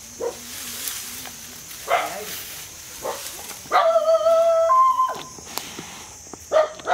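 Animal calls: several short, sharp calls and one longer pitched, whining call about four seconds in that steps up in pitch near its end.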